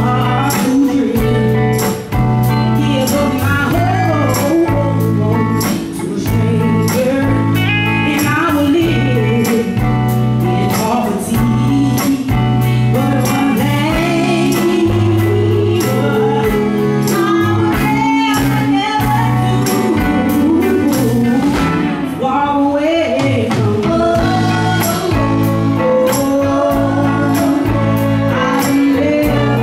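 Live soul band playing: drum kit with a steady cymbal beat, electric guitars and bass guitar under a lead vocal.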